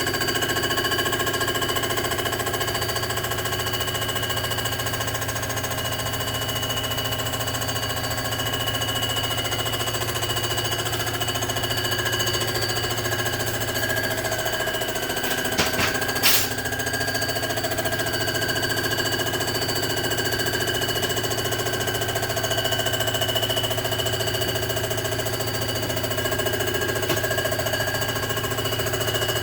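Cylinder-head surfacing machine running steadily while its cutter takes a pass across a 427 Chevy big-block head, with a rhythmic rattle under several steady whining tones. Two sharp clicks come a little past halfway.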